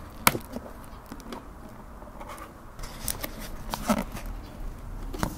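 Paperboard cake box handled in the hands, giving a few sharp clicks and creaks over a faint steady background.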